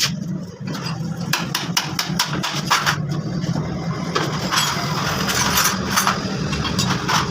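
A steady low machine hum with many sharp metallic taps and clicks over it, typical of hand tools being used on metal parts.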